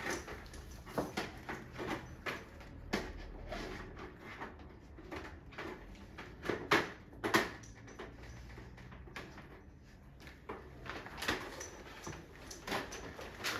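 Irregular knocks, clicks and clatter of parts and tools being handled during air conditioner installation work, with two louder knocks about halfway through.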